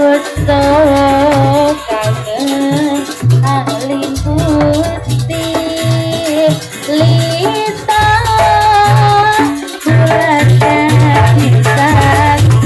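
Live East Javanese jaranan ensemble music: a wavering, ornamented melody line held over repeated low drum beats.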